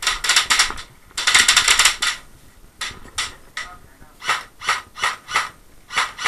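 Airsoft gunfire with BBs striking a wooden hut: a rattling burst at the start and a denser one about a second in, then single sharp cracks every third to half second, and another burst near the end.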